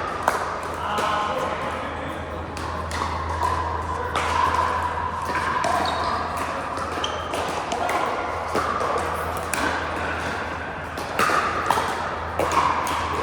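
Pickleball paddles hitting a plastic ball: repeated sharp, irregular pocks of a rally, over background voices.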